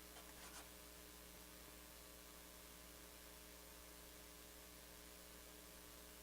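Near silence: faint room tone with a steady low hum, and a couple of faint soft rustles about half a second in.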